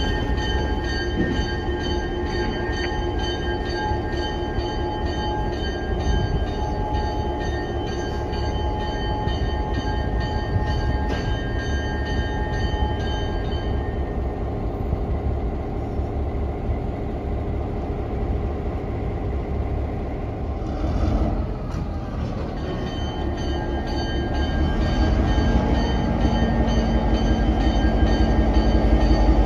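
CN diesel locomotive running at low speed with a train of tank cars, its engine a steady low rumble that grows louder near the end as it comes closer. High-pitched ringing tones sound over it, stop about halfway, and come back later.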